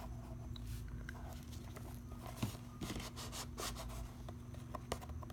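Hands working at the seal of a cardboard box: scattered light clicks, scrapes and rustles, with a steady low hum underneath.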